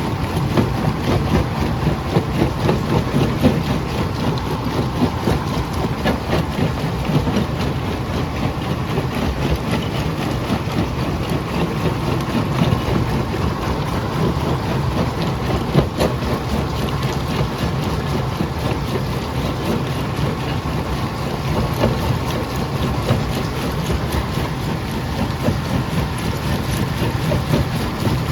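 Jaw crusher running steadily under load, a heavy low drone with a dense crackle of rock breaking between the jaws.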